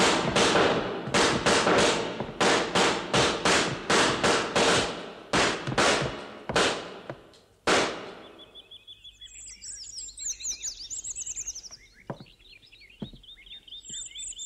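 A rapid, uneven run of sharp loud bangs, each fading quickly, for about eight seconds. Then quieter, fast bird-like chirping and twittering, with two short knocks near the end.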